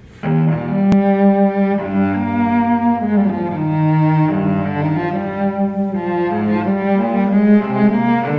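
Background music: a slow piece on cello and other bowed strings, with long held notes in changing chords, beginning just after the start.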